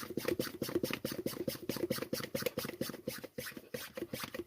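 Foot pump inflating a flat car tyre, worked in a fast, even train of short strokes, each a brief puff of air.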